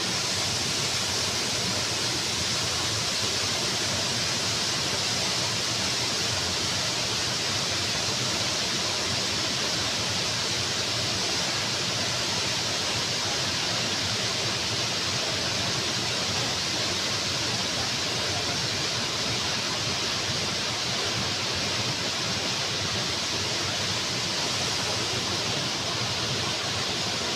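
Waterfall: falling water in a steady, unbroken rush with a bright hiss.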